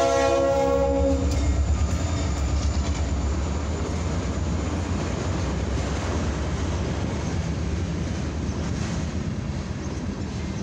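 A diesel freight locomotive's horn sounds and cuts off about a second in. It is followed by the steady rumble and clatter of tank cars rolling past over the grade crossing.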